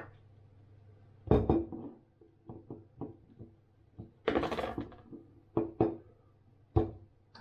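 Knocks and clicks of a glass soy sauce bottle and its cap being worked at by hand and with a knife, a stubborn cap that will not come open. The loudest knock comes about a second in, with a short rasping burst about four seconds in.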